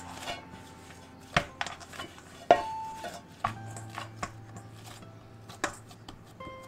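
Spinach paratha dough being kneaded by hand in a stainless steel bowl: the dough and knuckles knock and slap against the metal. The loudest knocks come about one and a half and two and a half seconds in, and the second sets the bowl ringing briefly.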